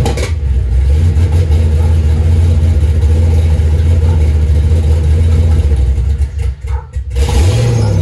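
LS V8 in a swapped Camaro Z28 running steadily soon after a cold start, with a deep low exhaust note. Near the end the sound dips briefly a couple of times, then comes a short rev.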